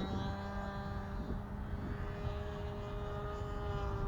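Glow (nitro) engine of a radio-controlled model warbird airplane running steadily in flight, its pitch holding nearly even with a slight dip about halfway through.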